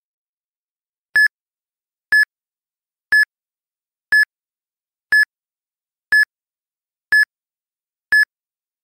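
Countdown timer sound effect: eight short electronic beeps, one a second, all at the same pitch, ticking off the seconds left to answer.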